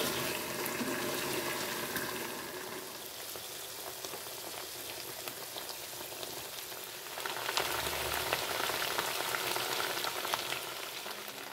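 Chicken necks, wings and liver frying in a wok in reduced adobo sauce and oil: a steady crackling sizzle with bubbling, louder from about seven seconds in.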